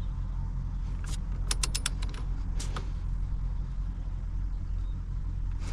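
Torque wrench ratcheting on the steering wheel nut: a quick run of about five sharp clicks about a second and a half in, then a couple more a second later, over a steady low hum.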